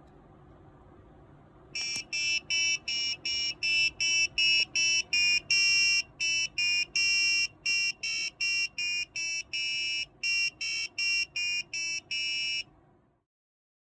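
Arduino-driven buzzer sounding a rapid series of short high-pitched beeps, a little over two a second, some held slightly longer, for about ten seconds before cutting off.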